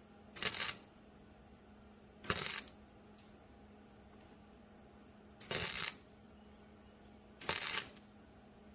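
Four short bursts of welding, each about half a second, spaced roughly two seconds apart: tack welds on thin door-handle mount metal with the welder's voltage turned all the way down, with a faint steady hum in between.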